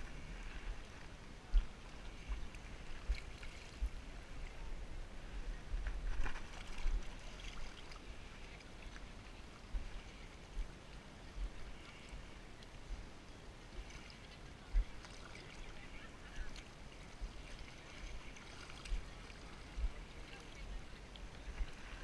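Water sloshing and splashing around a person wading through waist-deep water, with frequent short low thumps throughout.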